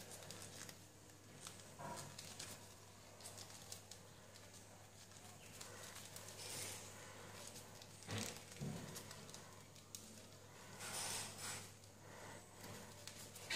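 Faint rustling and crinkling of a folded paper origami model being pinched and shaped by hand, with a few louder crackles, over a steady low hum.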